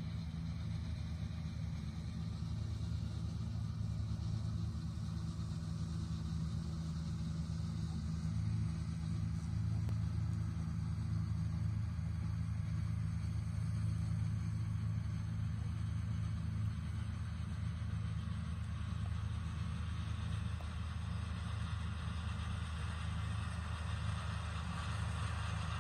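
An RK 55 tractor's engine running steadily under load while driving an IBEX TS51C drum mower through hay, heard from across the field as a low rumble. It grows fuller and brighter over the last several seconds as the tractor comes closer.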